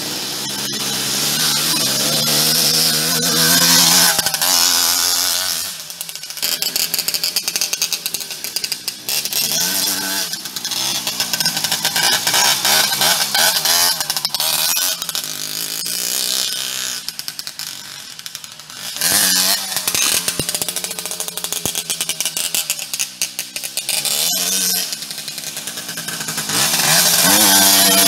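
Jawa 50 Pionýr moped's 49 cc two-stroke single-cylinder engine ridden hard off-road, revving up and easing off again and again, its note rising and falling. The throttle drops back briefly a few times.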